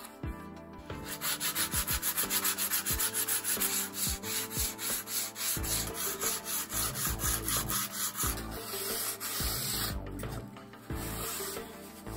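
Sandpaper rubbed back and forth by hand along a wooden sword blade, in quick even strokes about five a second. After about eight seconds the rubbing turns smoother and steadier, pauses briefly, and starts again near the end.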